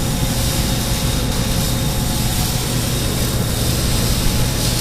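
Steady low hum of running machinery, even and unbroken throughout.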